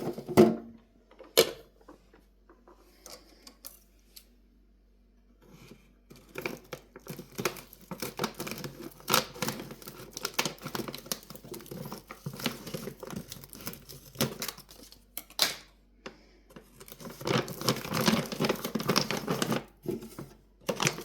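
Plastic cat-treat bag crinkling and rustling as a cat paws and bites at it, trying to tear it open. A few sharp crackles at first, then a dense run of crackling and tearing from about five seconds in, with a short lull and a louder stretch near the end.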